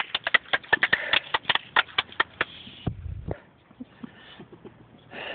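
Hand clapping: a quick run of sharp claps, about six a second, that stops about two and a half seconds in, followed by a short low thump.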